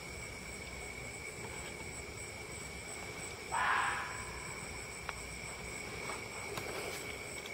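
A fox barks once, a short bark about halfway through, over night insects trilling steadily at a constant high pitch.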